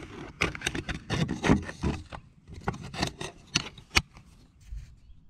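Handling noise: a flannel sleeve and hands rubbing and brushing close against the recording phone, with irregular clicks, knocks and scrapes, and one sharp click about four seconds in.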